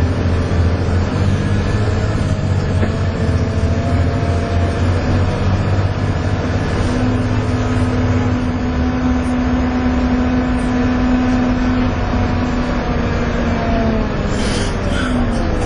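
Volvo B7TL double-decker bus heard from on board, its engine pulling under load with a steady drone and the whine bus enthusiasts call 'hoovering'. A stronger whine sets in about halfway through, holds, then falls away near the end as the bus eases off.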